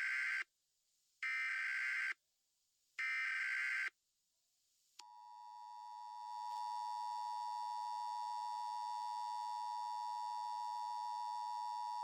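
Emergency Alert System header: three short, buzzy bursts of SAME digital data tones, the first already under way. About a second after the last burst, the EAS two-tone attention signal starts, swells over a second or so and then holds steady.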